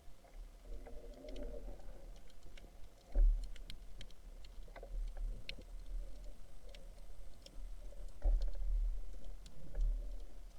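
Scattered small clicks and taps at an irregular pace over a low, fluctuating rumble.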